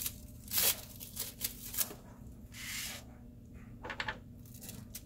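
Paper-crafting handling noise: a cardstock card slid and handled on a cutting mat, with short rustles of paper and a few light taps near the end.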